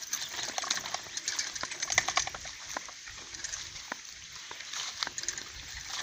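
Irregular rustling and crackling of a bicycle being pushed on foot through tall dry grass, a quick patter of small clicks that is thickest about two seconds in.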